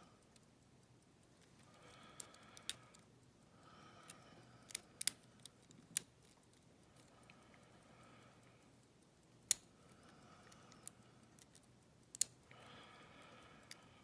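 Lock pick and tension wrench working the pin stacks of an ERA euro cylinder: about ten scattered sharp metallic clicks, the loudest about two-thirds of the way in, with faint scraping between.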